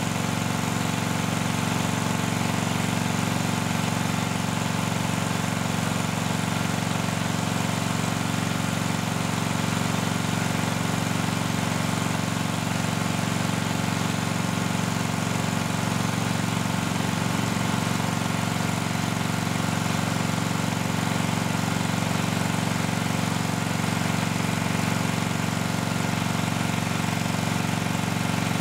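Steady machine hum of a pumping rig running liquid through a Liquid Controls M-7-1 positive-displacement flow meter and a reference meter in series during a calibration run. The pitch and level stay even throughout.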